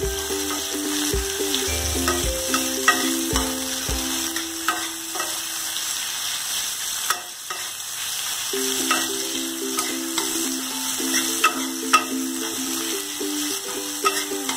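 Sliced onion rings and whole spices sizzling in hot oil in a kadai, stirred with a metal spatula that scrapes and clicks against the pan now and then.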